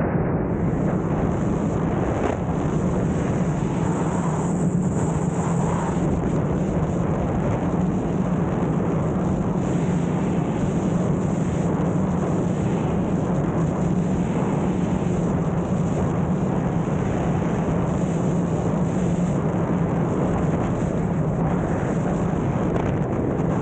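Wind rushing over the microphone of a camera worn in wingsuit flight, a loud, steady roar with a low drone running through it.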